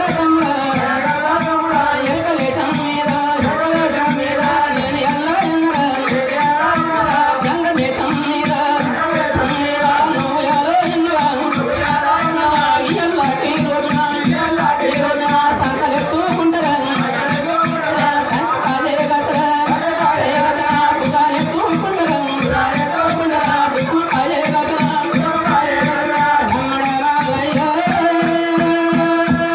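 Traditional Indian folk music: a wavering melody line over fast, dense rattling percussion. Near the end the melody settles on one long held note.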